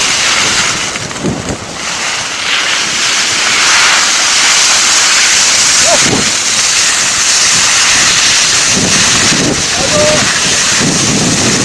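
Forest fire burning close by: a loud, steady rushing hiss that sits mostly in the upper range, with faint distant shouts.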